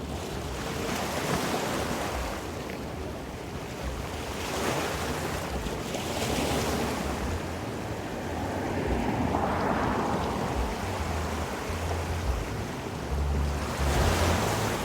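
Ocean surf breaking and washing ashore in slow surges every few seconds, with wind buffeting the microphone.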